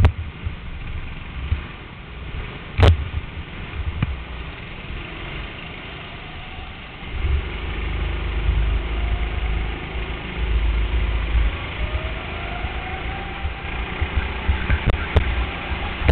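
Go-kart engines idling in the pit lane, with a sharp click about three seconds in. About seven seconds in, the kart's engine gets much louder as it pulls away and accelerates, its note rising slowly toward the end.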